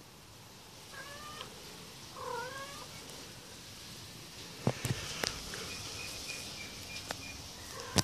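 Kitten mewing twice, a short high wavering call about a second in and another around two seconds in. A few sharp clicks come near the middle.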